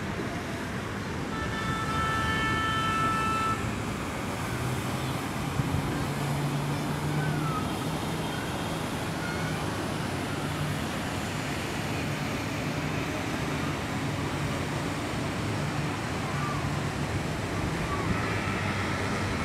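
Street traffic noise with a vehicle horn sounding for about two seconds near the start. Then an engine's low hum runs under the traffic.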